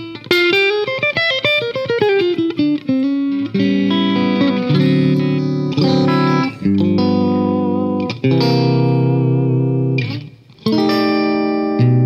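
Fender Stratocaster electric guitar played through an engaged Fairfield Circuitry Accountant compressor pedal: a quick descending run of single notes, then ringing chords with short breaks between them.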